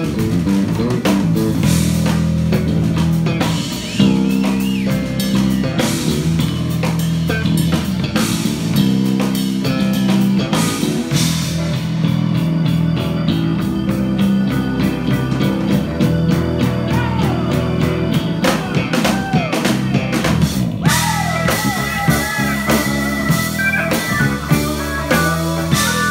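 Live band playing loud instrumental blues-rock on electric bass, drum kit, keyboard and electric guitar, with a steady bass line and wavering bent lead notes in the second half.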